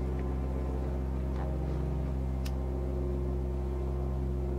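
A cigarette lighter struck, with one sharp click about two and a half seconds in, over a steady low hum.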